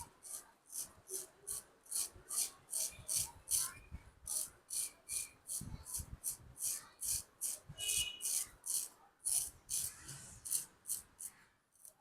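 Razor scraping over a scalp in quick, short strokes, about three a second, a rapid rhythmic rasping during a head shave.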